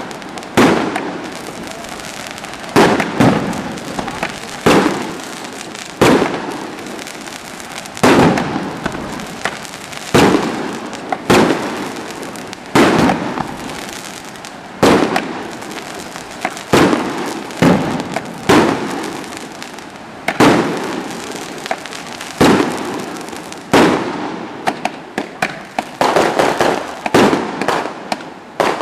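Aerial firework shells bursting one after another, a sharp bang every second or two, each dying away before the next. A quicker run of bangs comes near the end.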